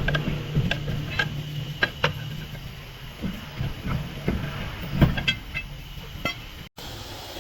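Irregular clanks and knocks of tools on metal over a low, steady engine-like hum; the sound drops out for an instant near the end.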